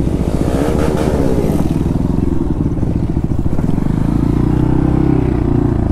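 Motorcycle engine running at low speed under the rider, its firing pulses steady, becoming louder and more even about four seconds in.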